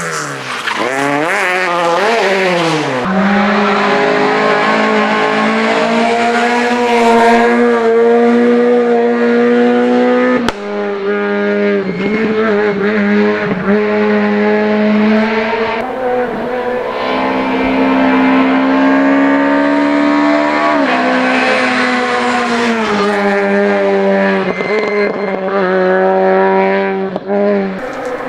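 Rally car engine running at high revs, its pitch swinging with throttle and gear changes in the first few seconds, then held and slowly climbing in long pulls, with an abrupt change about ten seconds in.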